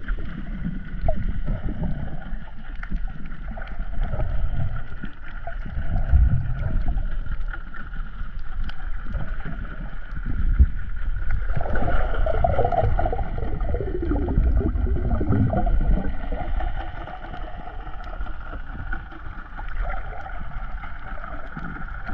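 Muffled underwater noise from a camera held under the sea: water rumbling and sloshing against it, with a steady high hum underneath. A louder wavering sound rises and falls for a few seconds about halfway through.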